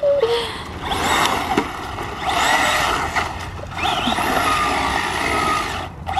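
RC truck driving fast over loose dirt: the motor whines, rising and falling in pitch as the throttle is worked, under a steady hiss of tyres spraying dirt and grit.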